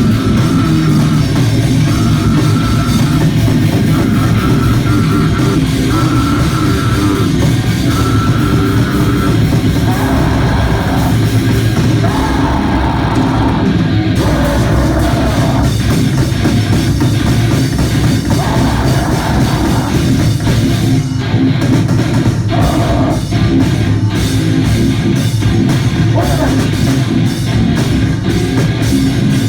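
Hardcore punk band playing live, loud and fast: distorted guitars, bass and pounding drums, with shouted vocals in places and rapid drum hits through the second half.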